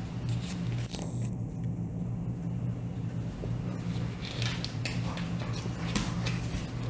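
Golden retriever and kitten play-fighting on a hardwood floor: scattered scuffs and clicks of paws, claws and mouthing, over a steady low hum.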